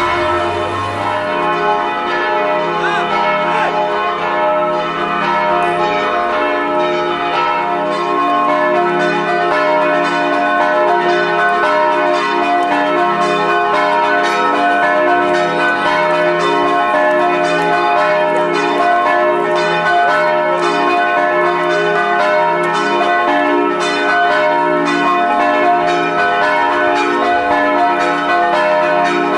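Church bells ringing, several bells struck in quick succession so that their tones overlap and ring on.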